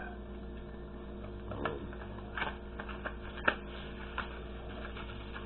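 Hands handling a small disco flash firework and its packaging: scattered light clicks and rustles, over a steady low hum.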